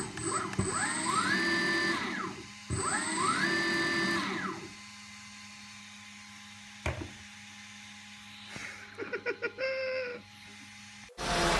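A brushless outrunner motor (Turnigy SK3 6364 190kV) on a DIY electric longboard's belt-drive truck is throttled up from the remote twice, running free on the bench. Each time its whine rises in pitch, holds for about a second and winds back down. Music starts suddenly near the end.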